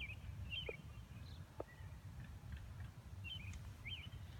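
Birds chirping faintly in short quick notes, a few at a time, over a low steady rumble, with a couple of faint ticks.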